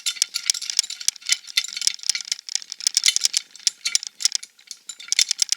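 Cast-metal jaw of a Bessey drill press vise being run quickly back and forth on its lead screw: a fast, irregular metallic rattling and clicking, its tracking screws adjusted so it slides smoothly.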